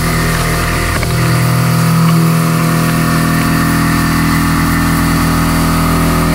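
Inch-and-a-quarter Kennametal HARVI I TE carbide end mill taking a heavy cut in 4140 steel on a 100 HP CNC machine. The spindle and cutter give a loud, steady hum made of several steady tones.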